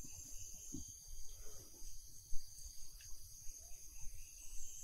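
Steady high-pitched insect chirring in forest, with a single brief thump about two seconds in.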